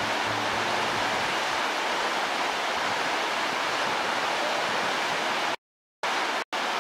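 Rushing whitewater of a river rapid, a steady dense hiss of churning water. Near the end it cuts off abruptly, then comes back in short choppy bursts separated by moments of total silence.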